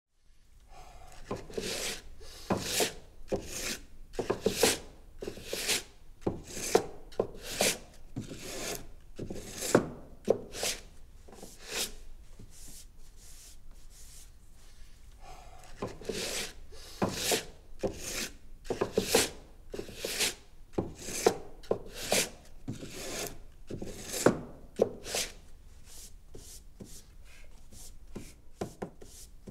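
Sanding block rubbed by hand back and forth over the weathered wood of an old boat's hull, in steady strokes of about two a second, with a pause of a few seconds near the middle.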